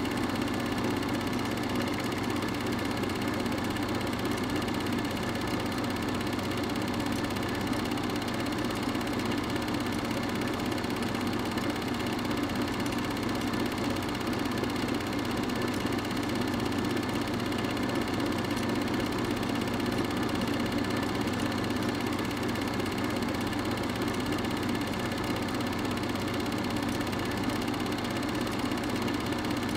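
An 8mm film projector running: a steady, unchanging mechanical hum with no other events.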